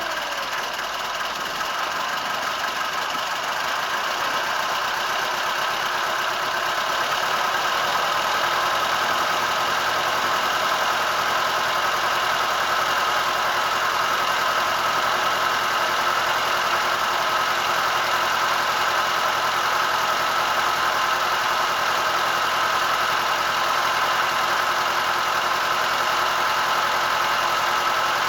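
A boat's engine running steadily, heard from on board. It grows a little louder over the first several seconds, then holds an even level.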